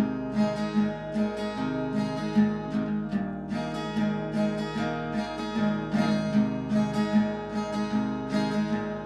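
Background music: a guitar strummed in a steady rhythm.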